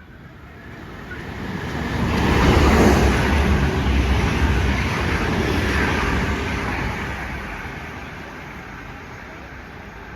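A train passing through at speed: a rush of wheel and rail noise that swells over the first three seconds, then slowly fades away.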